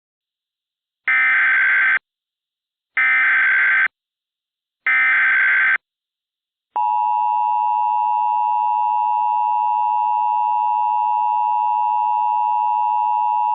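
Emergency Alert System tones opening a child abduction (Amber) alert. Three short bursts of SAME header data screech about a second apart. About seven seconds in, the steady two-tone EAS attention signal starts.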